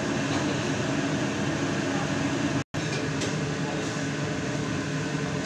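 Steady cooking noise from a large wok of ground-meat sauce simmering on the stove, an even hiss with a low hum under it. The sound cuts out for a split second about halfway through.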